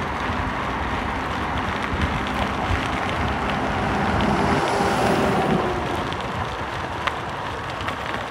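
Wind buffeting the microphone over a steady rumble, swelling a little about halfway through, with a few faint clicks.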